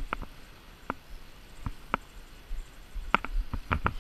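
Spinning reel ticking while a hooked trout is played: about ten sharp, short clicks at uneven intervals, bunching up near the end.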